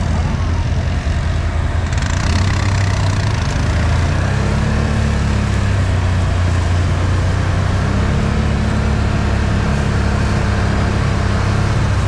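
Can-Am Outlander 1000 ATV's V-twin engine running at low, fairly steady speed while crawling through tall grass, its pitch lifting slightly a few times.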